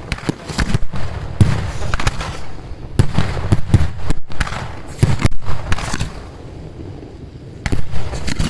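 Fireworks going off: a rapid run of sharp bangs and crackles that eases off for a second or two about six seconds in, then more loud bangs near the end.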